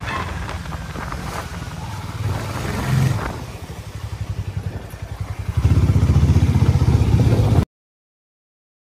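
Harley-Davidson X440's single-cylinder engine running as the motorcycle is ridden slowly: it settles to a slow, loping beat about halfway through, then grows louder with more throttle near the end before stopping abruptly.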